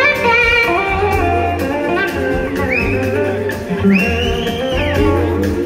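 Live soul-rock band playing an instrumental passage: an electric slide guitar glides up into long, high held notes over steady drums and bass.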